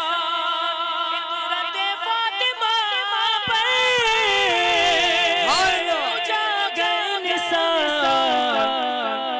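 A man singing a naat into a microphone: one long, drawn-out line with a wavering vibrato and runs of ornament, its pitch stepping down through the second half.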